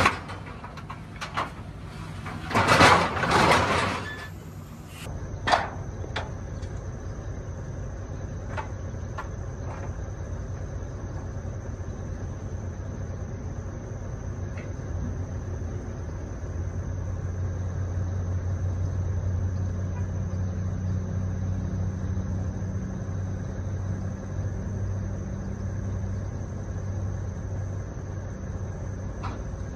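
A few loud knocks and rattles of metal in the first seconds, then the car-hauler truck's engine idling with a steady low rumble that grows louder about halfway through and eases off near the end.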